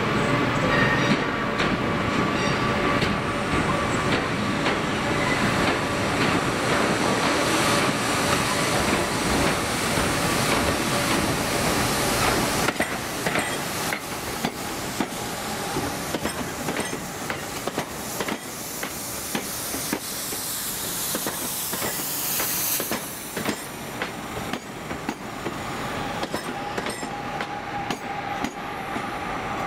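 West Midlands Railway Class 323 electric multiple unit running slowly past at close range, its wheels clacking over pointwork with a steady rushing noise. Its level drops about halfway through, and near the end a whine falls in pitch as the train slows.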